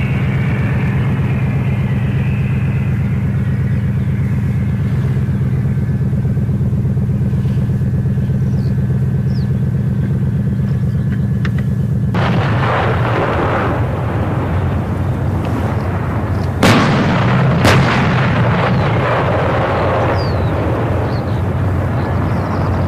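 PzH2000 self-propelled howitzer's V8 diesel engine idling steadily. About halfway in, the sound changes abruptly to a rough rumble, and a little later two sharp gun reports come about a second apart, the loudest moment.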